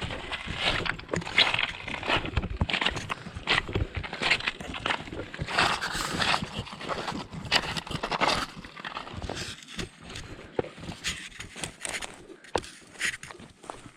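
Irregular knocks, clacks and rustling, like footsteps on stones and brush, denser and louder in the first two thirds and sparser near the end.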